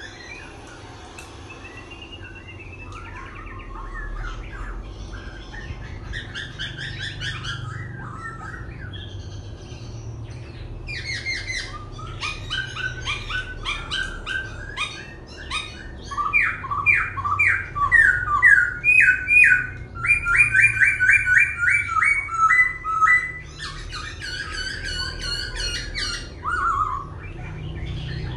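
Caged laughingthrush singing a varied song, changing phrases continually. In the middle stretch there are fast runs of repeated loud notes, followed by shorter whistled phrases.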